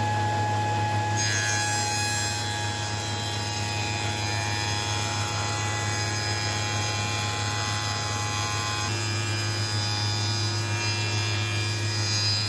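Spindle moulder running steadily with its power feeder, driving a strip of red deal pine past the cutter to machine a handle profile: a low hum with the noise of the cutter working the wood.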